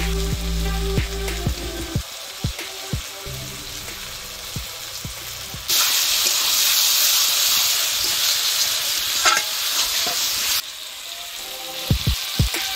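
Onions, tomatoes and chicken masala sizzling in a two-handled metal kadai while a metal spatula stirs and scrapes through them, with sharp clicks of the spatula against the pan. The sizzle turns much louder for about five seconds in the middle.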